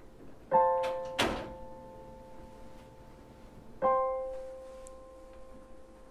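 Piano score: a held chord struck about half a second in, and another about four seconds in, each slowly dying away. A short sharp hit comes just after the first chord.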